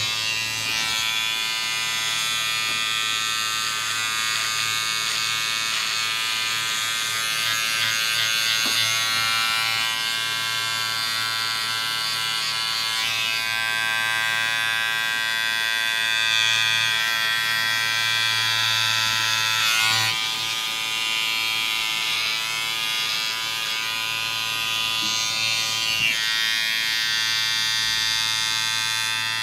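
Electric hair clipper buzzing steadily as it trims hair at the nape of the neck and around the ear. It starts suddenly, and the higher cutting noise shifts up and down as the blade moves through the hair.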